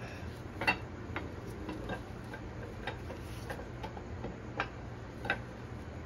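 Camshaft of a Chevrolet small-block 400 being worked out of the block by hand: light, irregular metal clicks as the cam catches in its bearing bores, the sharpest about a second in and twice near the end.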